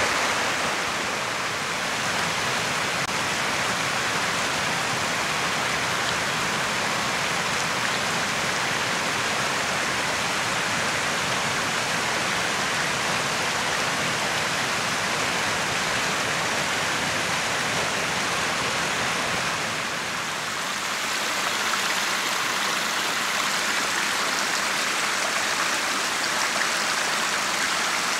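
Small forest brook rushing and splashing over rocks in a steady flow. About two-thirds through the sound dips briefly and then carries on with less of its low rumble.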